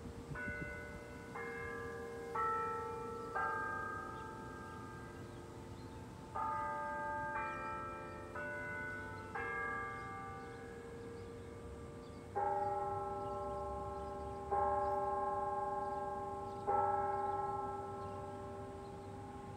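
Schulmerich carillon clock chimes ringing: two four-note phrases of bell tones about a second apart, then three slower, louder strikes of a lower bell about two seconds apart tolling the hour, each ringing on and fading.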